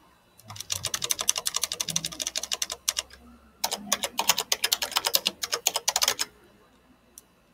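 Typing on a computer keyboard: two quick runs of keystrokes, with a short pause about three seconds in, as a search query is typed.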